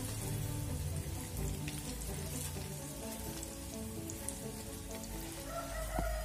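Hot oil sizzling steadily as besan-battered okra strips deep-fry in a pan, with background music playing over it.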